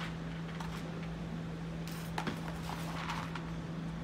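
Faint clicks and rustles of small wooden plugs being picked out and handled, with a brief hiss about two seconds in, over a steady low hum.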